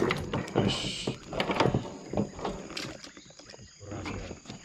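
Handling noise from a collapsible mesh keep net on a small boat: irregular knocks, clatter and rustling against the hull, with a short hiss about a second in.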